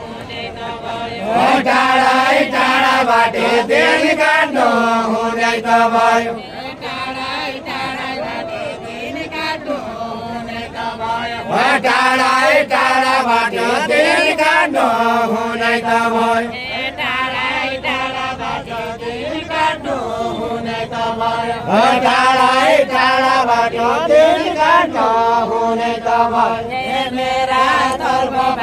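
Deuda folk singing: voices chanting a repeated melodic line in sung phrases a few seconds long, with held notes and short breaks between phrases.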